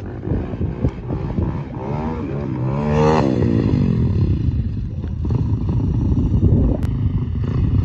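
Dirt bike engines running, one revving with its pitch climbing to a peak about three seconds in and then falling away.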